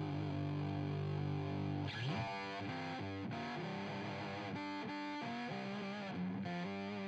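Intro music on distorted electric guitar: a held chord, then a run of single picked notes starting about two seconds in.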